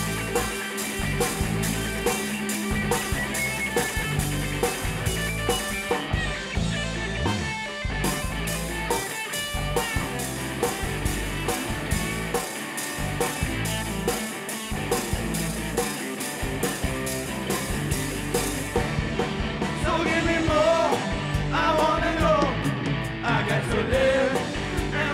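Rock-and-roll song with electric guitar and a steady drum beat; a male voice starts singing near the end.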